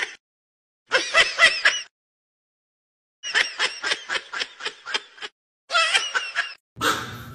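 Young kitten giving quick strings of short, high-pitched squeaky mews in three bursts, with pauses between. Near the end a steady low hum comes in.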